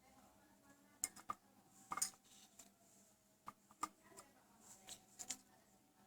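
Faint, irregular clinks and taps of a metal teaspoon against a small glass while sweet soy sauce is spooned in, about a dozen light ticks with the loudest about one and two seconds in.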